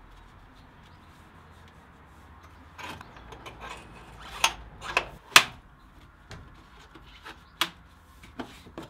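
An air filter housing being worked into place and strapped down in a van's engine bay: rubbing and scraping of the canister against surrounding parts, with a series of sharp clicks and knocks starting about three seconds in.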